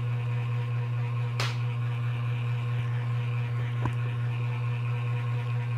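Steady low hum with fainter steady tones above it, broken by two brief sharp clicks, one about a second and a half in and one near four seconds.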